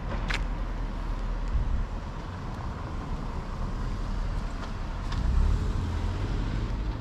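Street ambience of car traffic, a low rumble that swells twice as vehicles pass, with a sharp click near the start.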